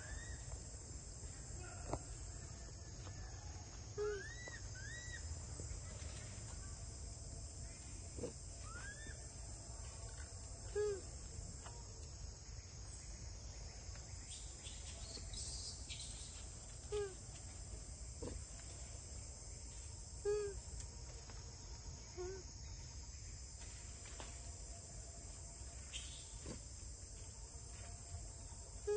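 Steady, high-pitched chorus of crickets, with short pitched animal calls sounding every few seconds over it.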